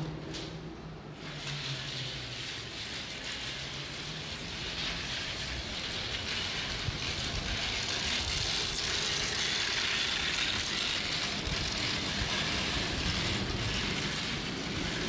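City street traffic: a steady noise of passing vehicles' engines and tyres, swelling from about five seconds in.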